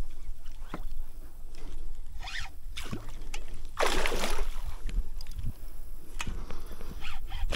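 A hooked longnose gar thrashing at the surface beside a kayak, with one loud splash about four seconds in. Light knocks of gear against the kayak come and go around it.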